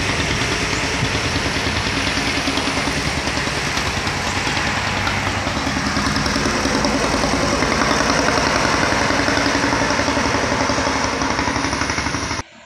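A vehicle engine running steadily with a fast, even throb; the sound cuts off abruptly near the end.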